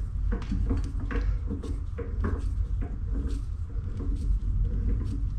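Irregular light clicks and knocks as a bench drill's quill and chuck are worked by hand, lowering a bar onto a die held in a die stock to start a thread, over a steady low hum.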